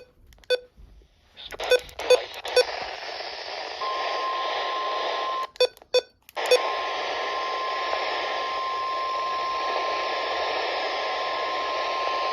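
NOAA Weather Radio warning alarm tone, a steady single pitch near 1050 Hz, heard through a receiver over heavy static. A few short beeps and clicks come as the static sets in. The tone starts about three seconds in, drops out for about a second with a few clicks, then comes back and holds.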